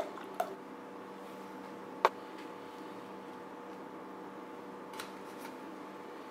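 The last of a milk pour into a glass, a few small splashes right at the start, then a single sharp knock about two seconds in over a steady low hum.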